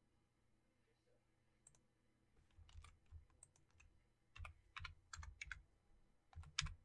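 Faint clicking of computer keyboard keys, pressed singly and in short groups, the loudest press near the end.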